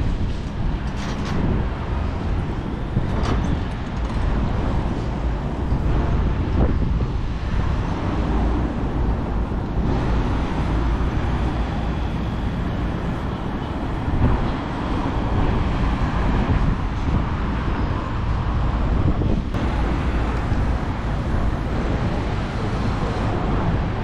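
City street ambience of passing road traffic, with wind rumbling on the microphone.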